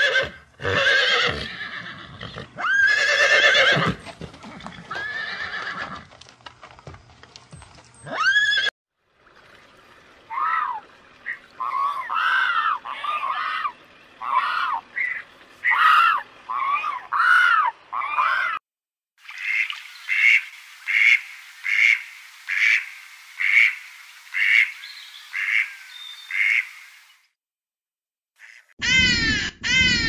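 Horses neighing and whinnying several times over the first eight or nine seconds. Then a run of bird calls: short arching notes, followed by a steady series of about two calls a second. After a brief silence come a few sharp sweeping calls near the end.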